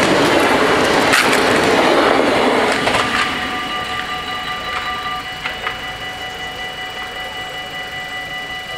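An NS VIRM double-deck electric train rolls past over the rails, its noise dropping away about three seconds in. The level crossing's electronic warning bells then ring on in a steady, rhythmic pattern.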